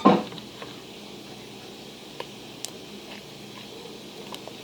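Slime being worked by hand after more activator is added: sparse faint wet clicks and squishes over a low steady hiss, after a brief louder sound at the very start.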